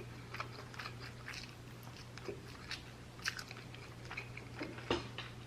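A person chewing a mouthful of pan-fried instant noodles and chicken breast close to the microphone, with soft, irregular wet smacks and clicks of the mouth, several a second.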